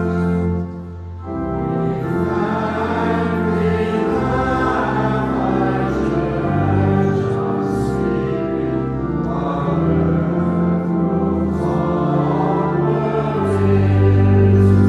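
Church music for Mass: slow, sustained sung chords in the manner of a choir or hymn, with a brief drop in level about a second in.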